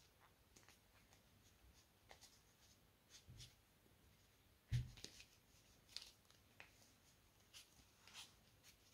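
Faint, scattered rustles and soft clicks of crocheting: a large crochet hook pulling thick 5 mm cotton cord through stitches, with one slightly louder soft knock a little under five seconds in.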